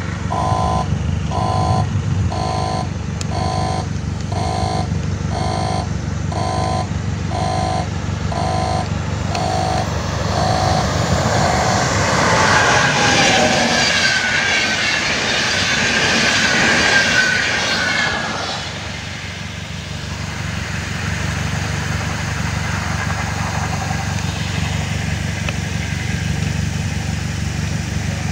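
Level-crossing warning signal beeping steadily, about one and a half beeps a second, then stopping. An electric-hauled passenger express passes over the crossing, with loud wheel-on-rail noise and a high metallic squeal that die away after several seconds.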